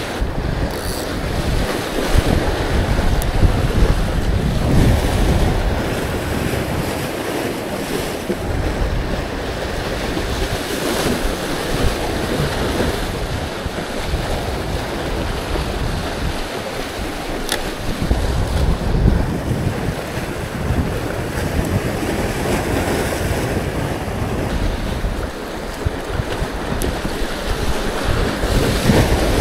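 Sea waves washing and splashing against the concrete tetrapods of a breakwater, with wind buffeting the microphone in uneven low gusts.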